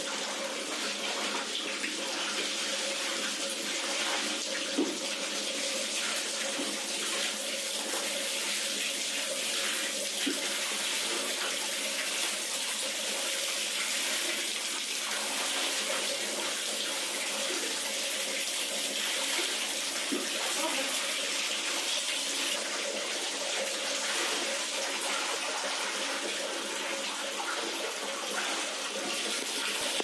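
Water sloshing and splashing as soapy clothes are rinsed by hand in a plastic tub, lifted, dipped and wrung out, over a steady, even rush of water.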